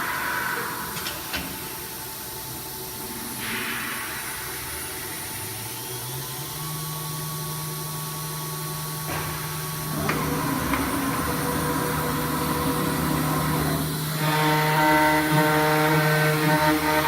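1325 ATC CNC router at work: short hisses of compressed air, then the spindle spins up with a rising whine that settles into a steady tone. After about ten seconds machining noise joins in and grows louder near the end, typical of the router cutting.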